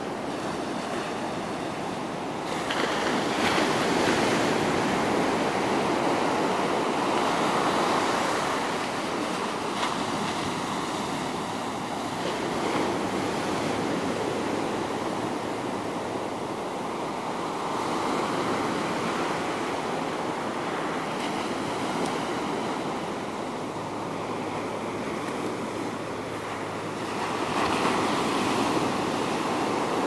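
Ocean surf breaking and washing up a sandy beach: a steady rush of water and foam that swells louder several times as waves break.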